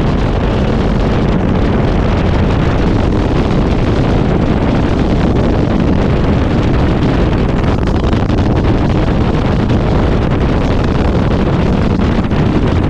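Open-cockpit gyrocopter landing: a steady rush of wind buffeting the microphone over the engine and rotor noise, unchanging as it comes in low and rolls out on the grass strip.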